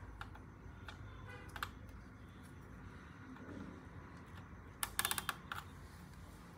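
Keys clicking on a Lenovo G505S laptop keyboard: scattered single keystrokes, then a quick run of several presses about five seconds in.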